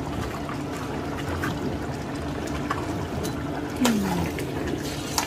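Thick tomato-based stew bubbling in a stainless-steel stockpot while a metal spoon stirs through it, with scattered small clicks and one sharp clink of metal on the pot a little under four seconds in.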